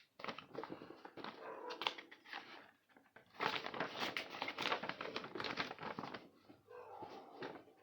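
Packaging being handled during unboxing: plastic wrap and cardboard crinkling and rustling in bursts, busiest through the middle few seconds.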